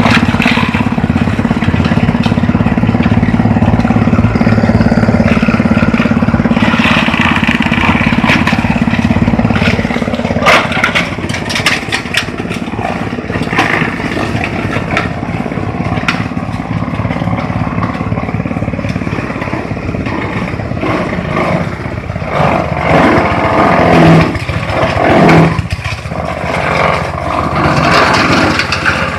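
Multifunction chopping machine running on an engine drive. It drones steadily at first; after about ten seconds irregular cracks and crunching set in as material is fed through and chopped, with the loudest bursts shortly before the end.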